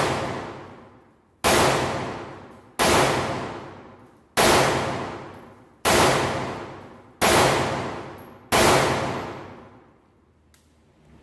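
CZ 805 Bren 5.56 mm rifle fired in single shots at a steady pace, six shots about a second and a half apart. Each shot rings out in a long echo that fades before the next.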